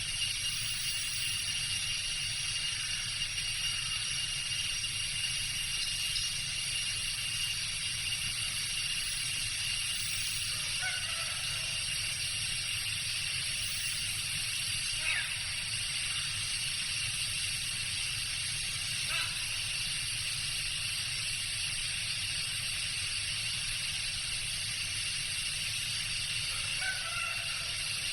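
Tropical jungle ambience: a steady, high-pitched insect drone with a low rumble beneath, and a few short animal calls, likely birds, scattered through, about a third of the way in, near the middle and near the end.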